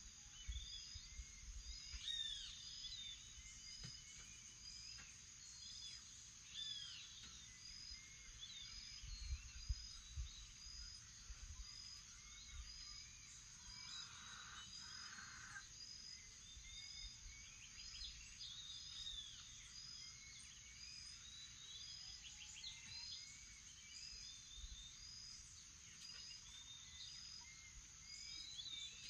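Faint morning chorus of birds chirping and calling, with one short note repeated roughly once a second over a steady high-pitched drone.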